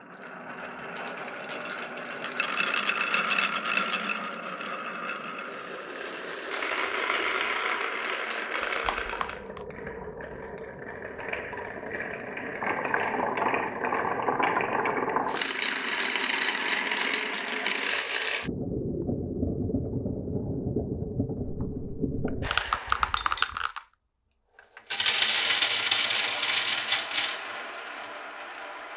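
Marbles rolling and clattering through a wooden marble run, rattling along tracks and clicking against wooden pieces. The sound comes in several short segments that change abruptly, with a silent gap of about a second about five seconds before the end.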